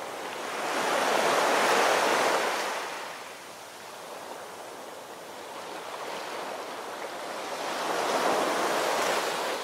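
Sea waves washing, as an even rush that swells twice: once about a second in and again near the end.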